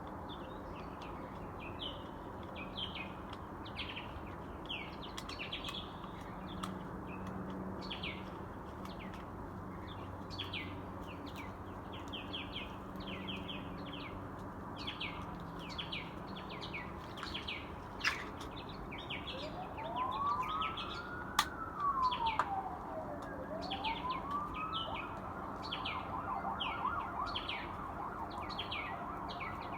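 Birds chirping steadily over a low city hum. About two-thirds of the way in, an emergency vehicle siren wails up and down twice, then switches to a fast warble.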